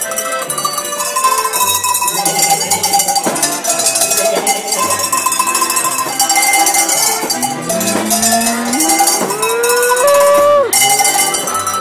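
Cowbell struck in a steady rhythm along with music that has a repeating bass line. About eight seconds in, a pitched sound slides upward and holds briefly before stopping.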